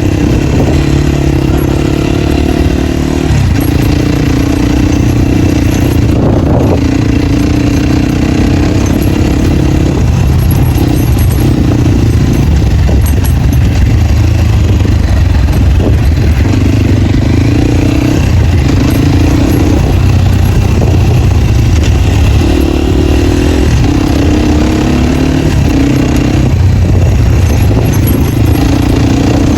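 Dirt bike engine with its dB killer removed, running loud and open under riding load, the pitch rising and falling every few seconds as the throttle opens and closes.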